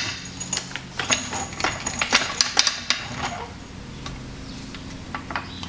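Hydraulic floor jack being rolled into place and raised under a car's rear suspension knuckle: a run of sharp metallic clicks and clanks for the first three seconds or so, then quieter.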